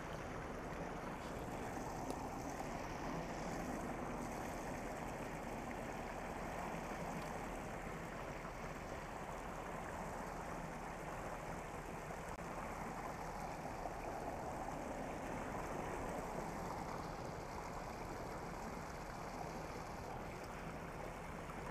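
Steady sound of water spilling over a low concrete weir into a pool.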